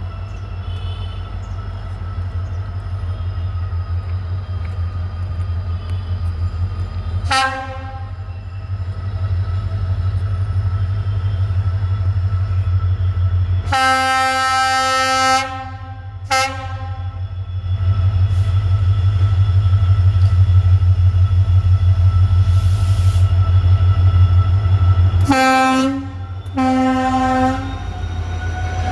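EMD WDP4D diesel locomotive's 16-cylinder two-stroke engine droning with a deep, pulsing hum that grows louder a little past halfway. Its horn sounds five times: a short blast, a long blast followed by a short one, and two short blasts near the end.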